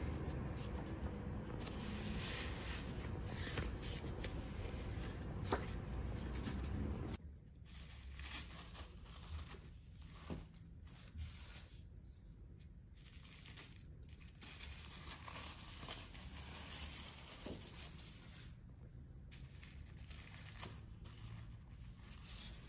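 Paper and clear plastic wrapping rustling and crinkling as large engraved prints are handled and leafed through. It is louder for about the first seven seconds, then drops suddenly to softer, scattered crinkles.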